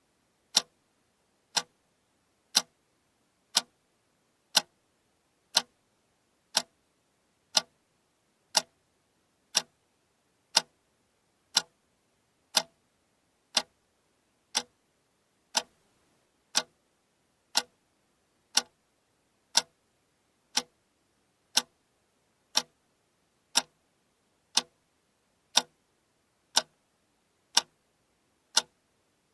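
Alarm clock ticking steadily, one sharp tick each second, all ticks alike.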